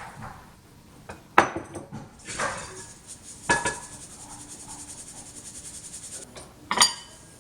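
Flour being sifted through a number 40 mesh sifter: a few sharp knocks and clinks of the sifter, and a stretch of quick, even rattling about halfway through as it is shaken.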